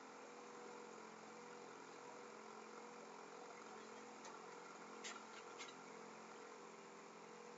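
Near silence: a steady low electrical hum, with three or four faint computer-mouse clicks a little past halfway.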